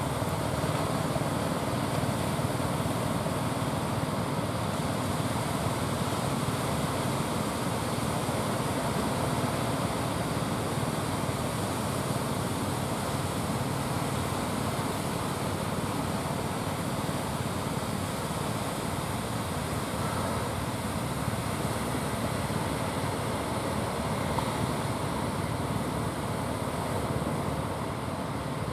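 Surf breaking and washing onto the beach in a steady rush, with a low engine drone from the fishing boats coming in offshore.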